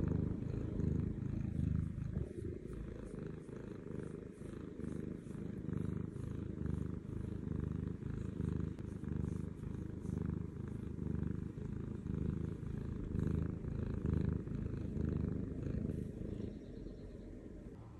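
Domestic cat purring contentedly right at the microphone: a low rumble that swells and eases in a steady rhythm with each breath in and out, dropping a little in level near the end.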